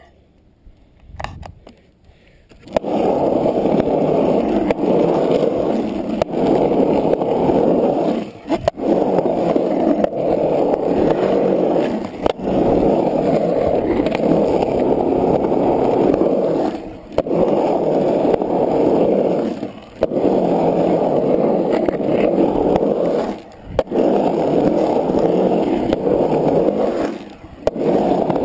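Skateboard wheels rolling on the smooth concrete of a skate bowl: a steady rumble that starts about three seconds in and breaks off briefly half a dozen times.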